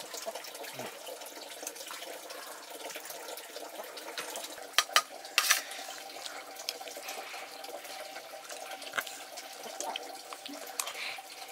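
Water running or splashing steadily, with a few sharp clinks or knocks, the loudest a little past halfway.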